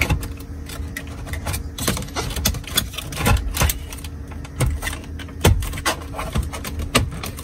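Toyota Alphard's plastic centre-console trim panel being pressed and clipped back into the dashboard: irregular plastic clicks and knocks, with a few sharper snaps around the middle, over a steady low hum.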